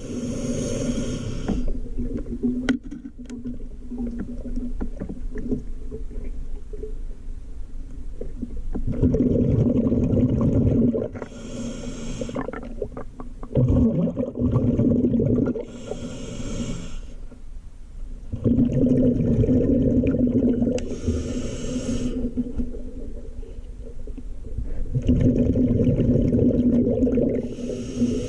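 A scuba diver breathing through a regulator underwater: a short hissing inhale every few seconds, each followed by a longer, loud, low rumble of exhaled bubbles.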